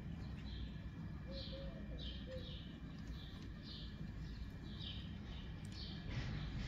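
Small birds chirping over and over, short falling chirps about two a second, over a steady low background rumble.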